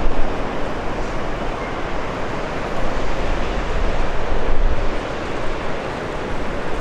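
Steady outdoor rushing noise with wind buffeting the microphone, rumbling in the bass.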